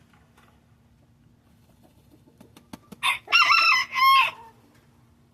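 A few light clicks, then a chicken crows once about three seconds in: one loud call in three connected parts, lasting about a second and a half.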